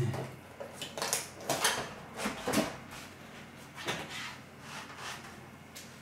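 Stiff plastic packaging crackling and clicking in a string of short bursts as a HEPA carbon car cabin filter is unwrapped and handled in its moulded plastic tray, busiest in the first few seconds.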